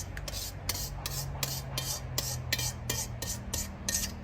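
A spatula scraping and stirring in a wok, stir-frying tomato and eggs: quick, even strokes about three a second.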